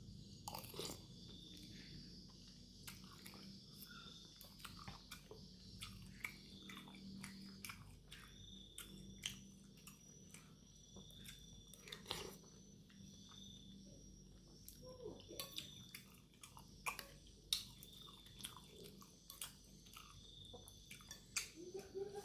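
Close-up chewing and biting of chicken noodles and meatballs, with many small, sharp mouth clicks and smacks scattered irregularly.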